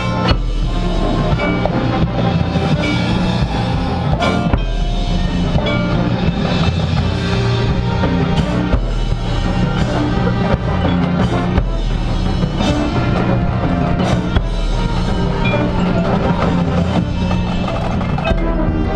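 Marching band playing continuously, with sustained brass notes over drums and mallet percussion such as marimba and glockenspiel.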